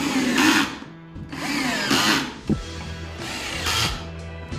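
Cordless drill-driver running in three short bursts, its motor pitch rising and falling, as it drives pocket-hole screws into an MDF drawer box.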